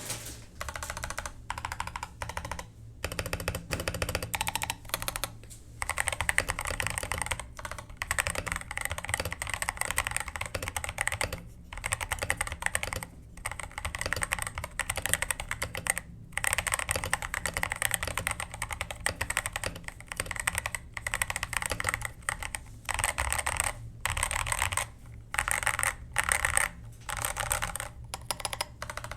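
Typing on a Budget68 mechanical keyboard with Boba U4T tactile switches and Mac keycaps. The keystrokes come in fast runs broken by brief pauses.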